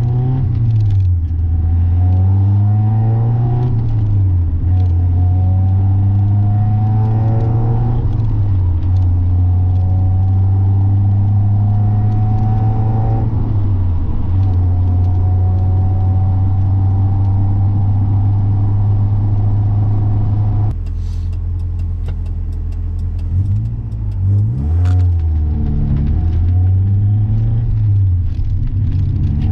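NA Mazda Miata's four-cylinder engine pulling up through the gears, its pitch rising and dropping at each shift, then holding steady at a cruise. About two-thirds through it goes quieter off the throttle, gives a quick rev as the gear comes down, and pulls again.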